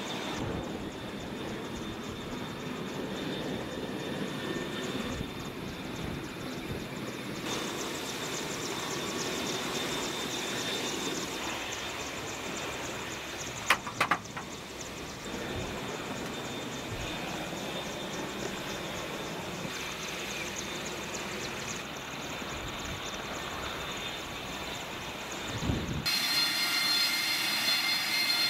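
Steady jet-engine noise on a carrier flight deck, with a short sharp double knock about halfway through. Near the end it grows louder and a high whine comes in, from a Harrier jump jet's engine running.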